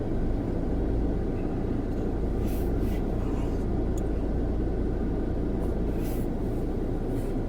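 Steady low rumble of a car heard from inside the cabin, with a few faint brief rustles or scrapes.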